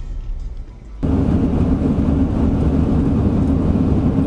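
Steady engine and road rumble of a vehicle driving along a highway, heard from inside the cab through a dashcam. It starts abruptly about a second in, after a quieter stretch.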